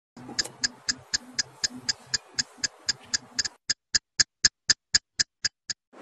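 Intro soundtrack of steady, evenly spaced ticks, about four a second, over a low tone that drops out about halfway, leaving the ticks alone until they stop near the end.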